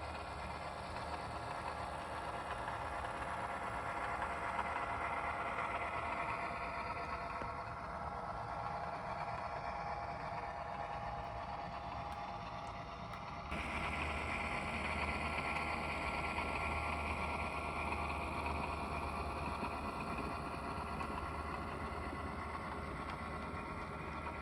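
Model diesel locomotive's sound-decoder engine running steadily as the train rolls along, with a faint clatter. About halfway through the sound changes abruptly and gets louder and fuller.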